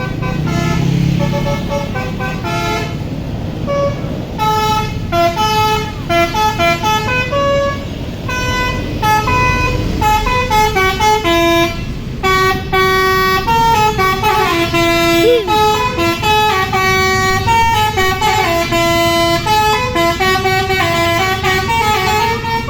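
Bus telolet horn, a set of musical air horns, playing a fast tune of short notes that step up and down, over the bus engine's low rumble.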